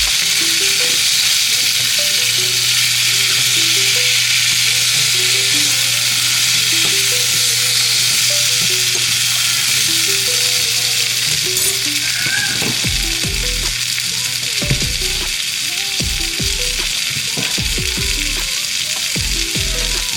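Salmon frying in a buttered pan, a steady loud sizzle, with soft background music underneath.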